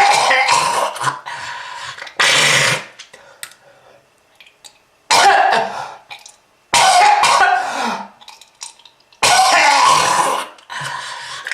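A person coughing in repeated hacking fits, about five bouts with short pauses between them, in the manner of a smoker's cough.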